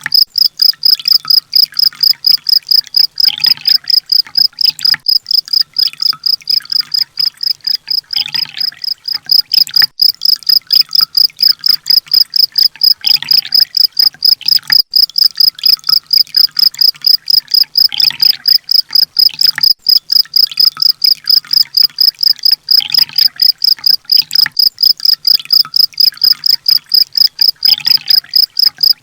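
A looped songbird-training (masteran) recording: a high, steady chirp repeated rapidly, several times a second. About every five seconds a lower, brief burst of calls joins it.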